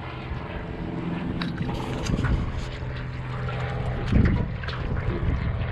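Wind buffeting the microphone over a steady low motor drone, with a few light knocks and one louder thump about four seconds in.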